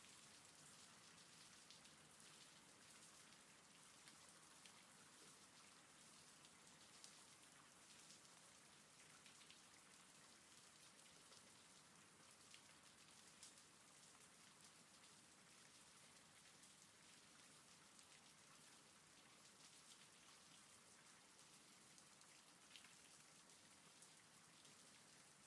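Faint steady rain, with scattered single drops ticking at irregular moments.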